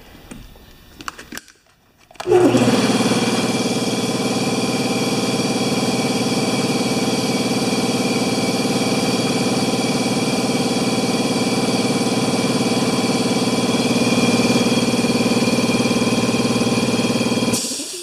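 Electric twin-tank air compressor, after a few clicks, starting up with a sudden surge about two seconds in and running steadily as it builds tank pressure. It cuts off just before the end, stopped at about 25 psi.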